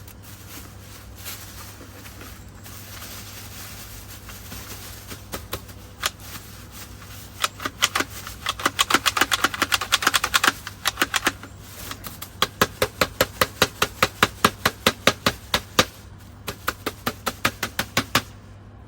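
Dyson V10 cordless vacuum's plastic dust bin being knocked repeatedly to shake the dirt out into a bag: a fast, even run of sharp knocks, about four a second, with a short break partway through.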